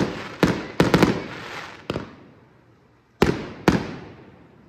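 Aerial fireworks bursting: about six sharp bangs in the first two seconds, each fading out, then a pause and two more bangs about half a second apart.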